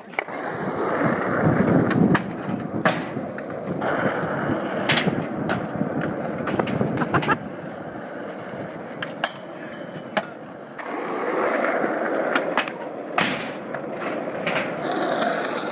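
Skateboard wheels rolling over concrete, with sharp clacks of the board striking the ground at intervals.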